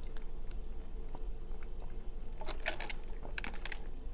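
Close-miked chewing of food, with a cluster of sharp, crisp crunching clicks starting about two and a half seconds in.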